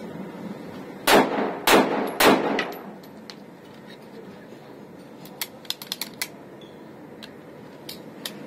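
Three pistol shots from a Beretta-type pistol being test-fired, about half a second apart and starting about a second in, each with a short echo off the brick walls. A few light metallic clicks follow later.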